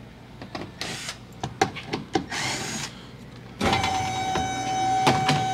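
Small electric power tool backing out an underbody panel screw: a few short whirring bursts, then from about three and a half seconds in a steady motor whine.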